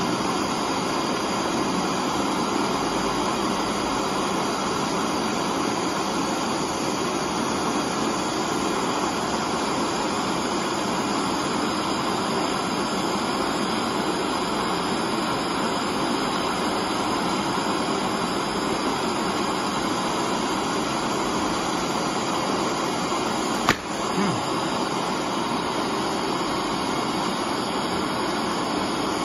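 Gas torch flame burning with a steady hiss. About 24 seconds in, a single sharp clack as the heated 316 stainless steel tube gives way under the spring-loaded clamp and its plate drops.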